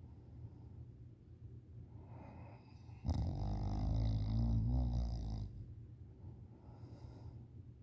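A person in deep sleep snoring heavily: quieter breathing, then one long, loud snore starting about three seconds in and lasting a couple of seconds, then quieter breathing again.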